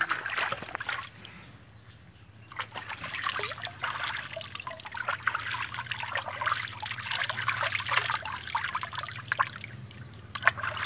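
Water splashing and trickling as hands scoop bath water from a tub and pour it over a dog's back. It drops quieter for a second or so about a second in, then carries on in irregular splashes and dribbles.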